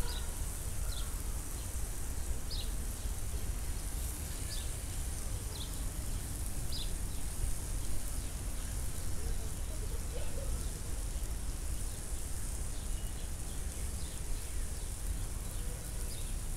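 Broccoli omelette sizzling in a frying pan: a steady hiss with a few small pops, and a spatula moving through the egg about eight seconds in.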